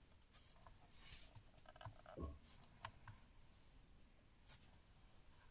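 Near silence: quiet room tone with a few faint clicks and a soft low thump about two seconds in.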